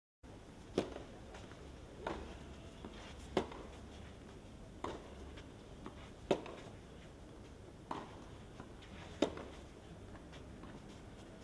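Tennis ball struck back and forth in a rally: sharp racket hits about every second and a half, with fainter ball bounces on the clay between them.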